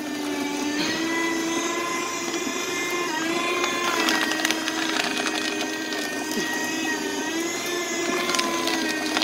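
Electric paper shredder's motor running with a steady whine as paper is fed in; its pitch dips briefly about three seconds in and again near the end as the sheets load the cutters.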